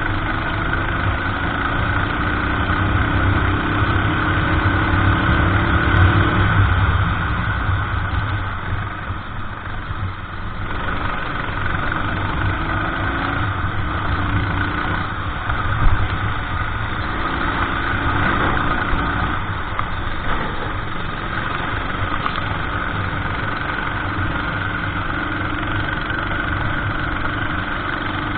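Racing kart engine running on track, its pitch climbing for several seconds at a time, then dropping off as the throttle is lifted, again and again. A single sharp knock comes about halfway through.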